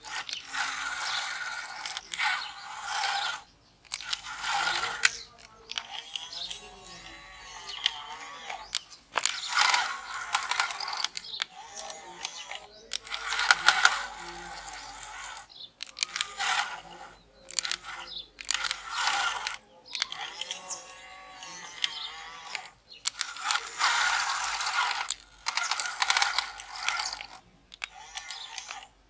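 Remote-control toy excavator's small electric motor and plastic gears whirring and grinding in repeated bursts of one to two seconds as the arm and bucket move.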